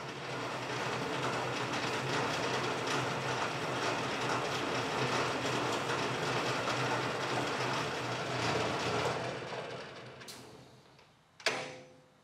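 Logan 11-inch metal lathe running with a steady mechanical rattle, then winding down and stopping about ten seconds in, followed by a sharp click.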